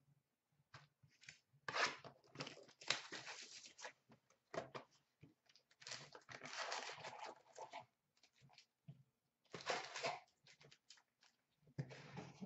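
Hands tearing open the wrapper of a sealed box of trading cards and handling cards: several short bouts of rustling and tearing with small clicks in between.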